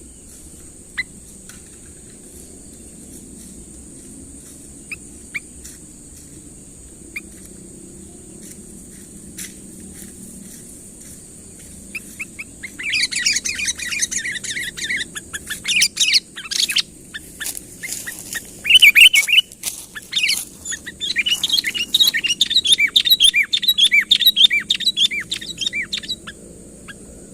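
Sooty-headed bulbul (kutilang) calling. A few scattered single chirps come first, then about 13 seconds in a long run of rapid chattering notes starts and goes on until near the end. A steady high hiss runs underneath.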